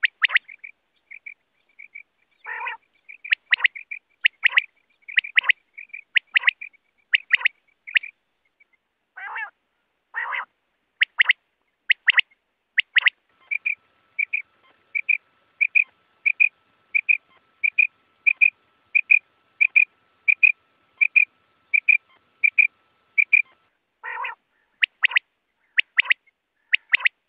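Coturnix quail calling: sharp, high call notes repeated in quick groups, with a few lower, rasping calls in between. About halfway in, a run of evenly spaced notes at about two a second goes on for some ten seconds.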